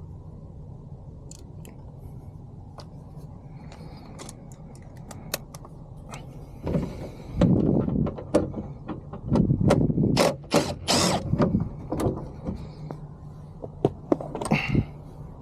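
Socket ratchet clicking in quick runs while undoing a 10 mm bolt, over a steady low hum. Only a few faint clicks at first, then loud, rapid ratcheting from about halfway through until near the end.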